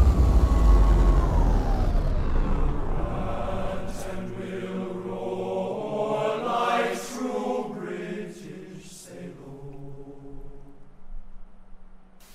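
Music from a meme compilation's intro, heavy in the bass at first and fading down, giving way to a chanted, sung melody that trails off near the end.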